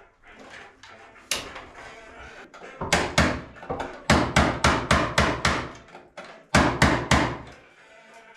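Hammer blows: sharp knocks in uneven runs, one about a second in, two a little later, then a quick run of about eight and three more near the end.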